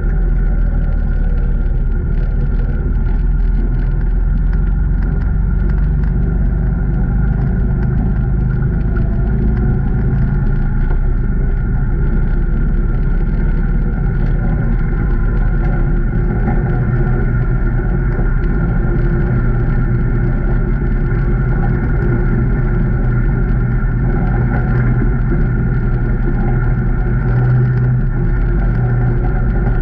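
A 2019 Can-Am Maverick Trail 800 side-by-side's V-twin engine running steadily under way on an off-road trail. It is a continuous low rumble whose pitch shifts only slightly.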